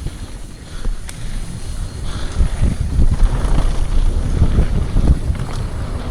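Wind buffeting the microphone over the low rumble of a downhill mountain bike rolling fast over rough dirt trail, with short rattles and knocks from the bike. The rumble grows louder about two and a half seconds in.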